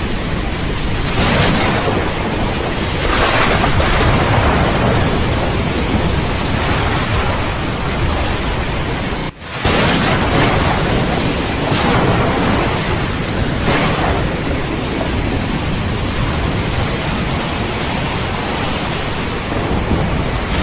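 Steady heavy rain with occasional swells of thunder. The sound drops out sharply for a moment about nine seconds in.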